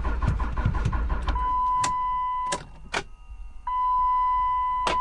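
Starter cranking a Dodge Ram's Cummins turbo-diesel in even strokes, about five a second, without the engine firing: a no-start the owner traces to a faulty power module or power input signal. The cranking stops about a second in, and a steady high beep tone sounds, cut off briefly midway with a few sharp clicks.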